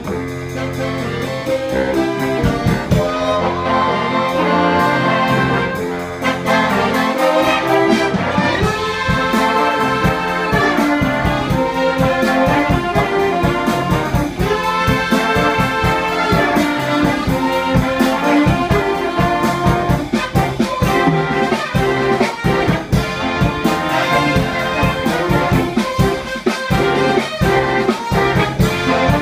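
Big band playing jazz, led by a full trumpet and trombone section with saxophones, loud and continuous.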